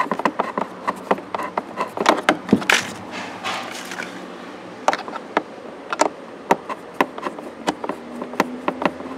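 Phillips screwdriver driving a screw into the glove box's side arm: a run of irregular sharp clicks and ticks, with a couple of short scraping rasps about three seconds in.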